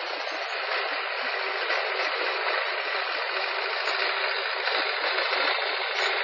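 Nitro engine of a 1/5-scale RC motorcycle running steadily, a constant buzz with no marked revving.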